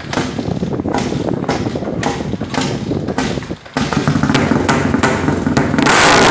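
Cold KTM LC4 400 single-cylinder engine turning over in regular beats about twice a second. It picks up pace a little under four seconds in and gets sharply louder near the end as it comes to life. This is a cold start after three days unused.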